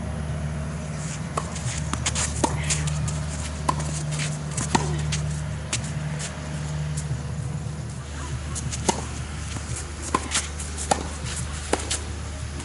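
Tennis rally: sharp pops of the ball off the rackets and bouncing on the court, coming in irregular runs over several seconds, over a steady low hum.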